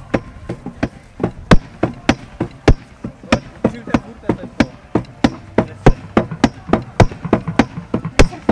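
A firefighter drives a long-handled hammer into the hammer box, the TFA station. The strokes land in a steady rhythm of about three sharp knocks a second.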